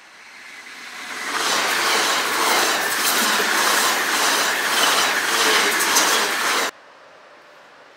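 Trenitalia electric passenger train passing close at speed. The rush of wheels and air swells over about a second into a steady loud roar with a regular clicking from the wheels, then cuts off abruptly near the end.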